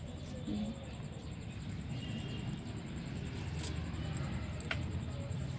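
Low rumble of a handheld phone microphone being moved through a garden, with a couple of sharp clicks near the end and faint outdoor background.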